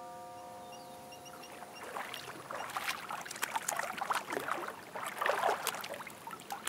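Water splashing: a child thrashing and slapping at lake water with his arms, in irregular splashes that start about two seconds in and keep on. Before that, a held musical note fades out.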